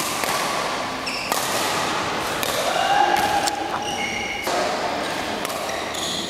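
Badminton rally: a series of sharp racket hits on the shuttlecock, with short high squeaks of shoes on the court floor in between.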